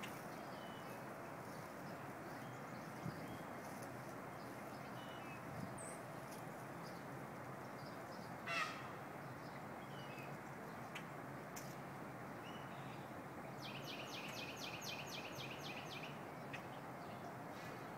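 Wild birds calling over a steady low background hiss: one short, harsh call about halfway through, then a quick run of about ten high, evenly spaced chirping notes near the end.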